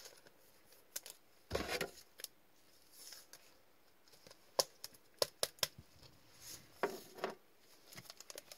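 Scattered light clicks and taps of plastic-cased trading cards being handled and stood up on a table, with a brief rustle about a second and a half in and a quick run of clicks around the middle.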